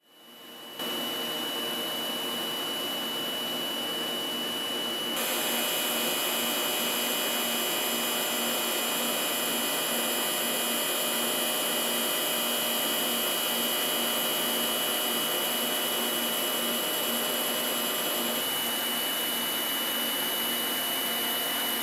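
Air-bearing sphere grinder running: a steady high whine over a continuous hiss, with coolant spraying at the grinding wheel. It grows louder about five seconds in.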